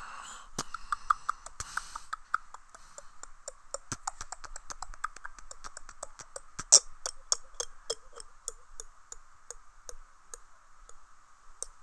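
Human beatboxing: a fast run of mouth clicks and percussive hits, about four a second, with one loud hit about seven seconds in. The hits thin out and fade toward the end as the routine winds down.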